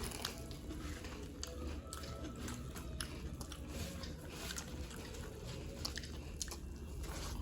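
Close-up chewing and crunching of puffed rice (muri) and fried snacks, a quick irregular run of small crisp crunches.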